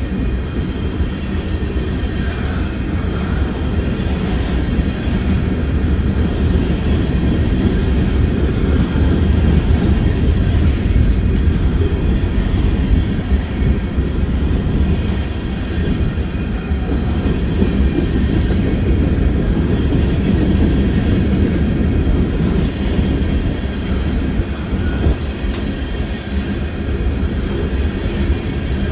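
Loaded open-top municipal waste cars of a freight trash train rolling past at trackside: a loud, steady rumble of steel wheels on rail.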